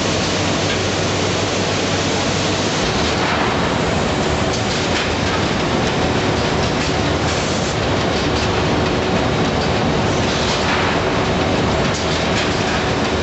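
Pacepacker open-mouth bagging machine running: a loud, steady mechanical clatter and hum with one constant tone, and hissing bursts about three, seven and ten seconds in.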